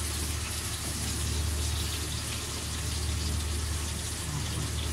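Breaded chicken schnitzels frying in hot oil in a pan, a steady sizzle, over a constant low hum.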